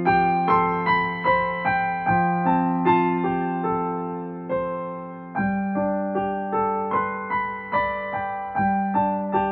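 Digital piano played solo in a slow, gentle ballad: broken chords of two or three notes a second over held bass notes that change about every three seconds.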